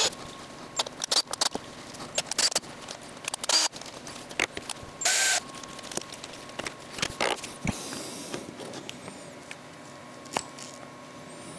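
An 8.5 mm drill bit reaming out the undersized hole of a red 3D-printed plastic knob, the part worked against the bit by hand: irregular scraping, crackling and clicks of plastic being cut, with no motor running.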